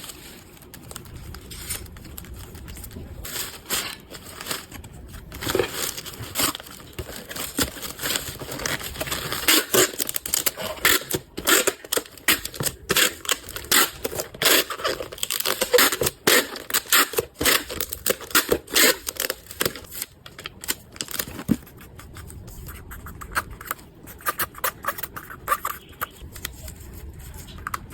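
Packaging being handled by hand: irregular crinkling, rustling and tearing, busiest through the middle and sparser near the start and end.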